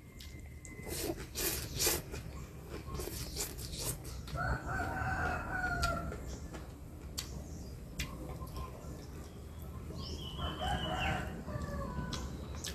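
A rooster crows twice, once about four seconds in and again near the end, each a long pitched call. Earlier, short wet slurping and eating sounds from noodles being eaten close to the microphone.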